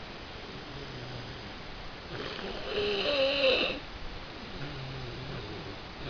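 A person sick with the flu snoring in his sleep: one loud snore with a wavering pitch about two to four seconds in, between quieter, low breaths near the start and near the end.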